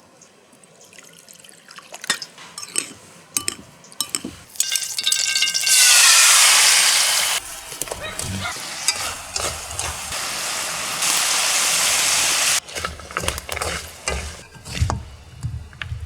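Corn frying in a hot pan: a loud burst of sizzling about six seconds in settles into a steady sizzle, with the clinks and scrapes of a utensil stirring the pan before and after.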